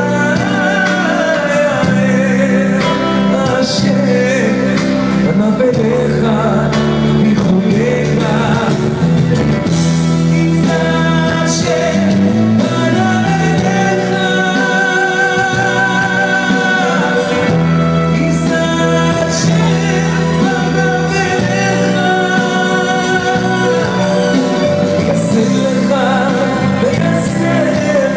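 A man singing live into a handheld microphone over amplified backing music with a steady beat and bass.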